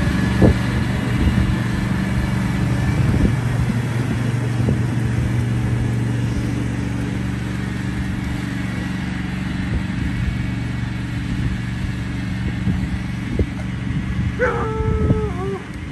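Husqvarna ride-on lawn mower engine running steadily while mowing, growing slightly fainter as it drives away. Near the end a dog gives a short whining call that falls in pitch.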